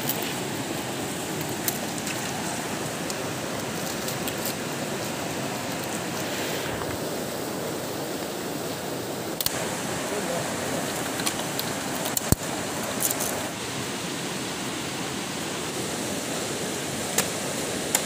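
Steady rush of flowing river water, broken by a few short, sharp clicks and pops.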